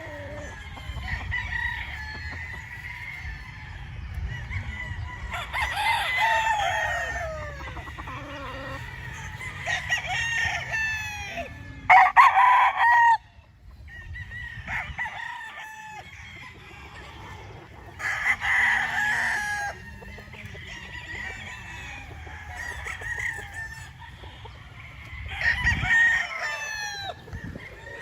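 Roosters crowing in turn, about five crows, with chickens clucking in the background between them. The loudest crow comes near the middle and cuts off abruptly.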